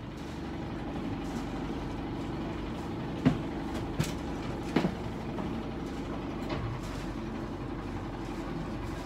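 Sailboat's engine running steadily, with a few sharp knocks about three, four and five seconds in.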